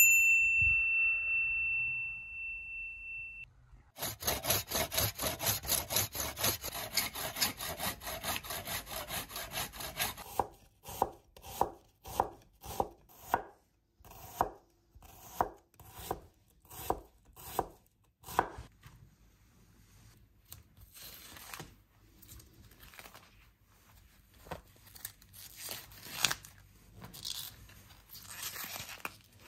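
Knife chopping food on a cutting board: a run of fast, even strokes, about four a second, then slower single cuts, then a few faint scattered ones. A steady high ringing tone sounds for the first few seconds.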